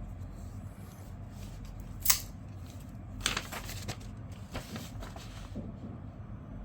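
Real Steel Sidus folding knife's D2 blade slicing paper in a sharpness test: a sharp snick about two seconds in, then a few short rustling cuts.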